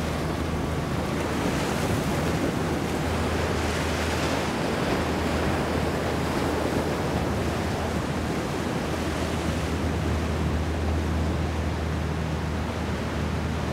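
Steady rush of wind and water, with wind buffeting the microphone, over the low, even drone of a boat's engines running.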